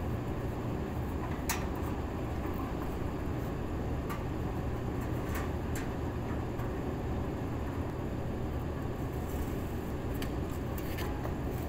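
Steady low rumble with a few light metal clicks and knocks scattered through it as the blower wheel housing is handled and set into the rooftop HVAC unit.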